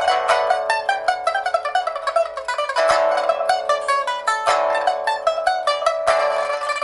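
Rosewood pipa played fast, rapid plucked notes with quick descending runs twice. It is a test play after repair, with a new fire-baked, sun-dried soundboard and new handmade frets, a steel first string and copper lower strings.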